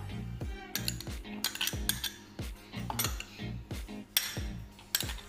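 Steel spoon clinking and scraping against small glass bowls as chopped and grated ingredients are scooped into a plastic mixing bowl: a run of irregular clinks and taps.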